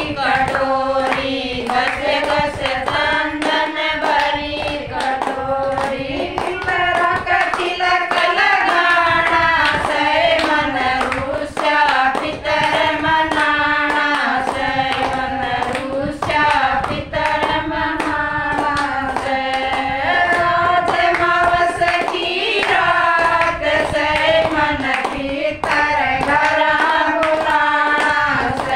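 A group of women singing a Hindi devotional bhajan in unison, keeping time with hand-clapping.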